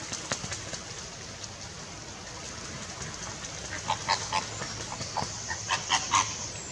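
Flamingos splashing as they bathe in shallow water, then a run of short honking calls from several birds, starting about four seconds in.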